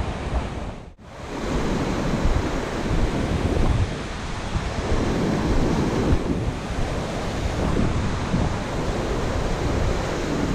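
Ocean surf breaking and washing up a sandy beach, a steady rushing wash that swells and eases, with wind buffeting the microphone. The sound drops out briefly about a second in.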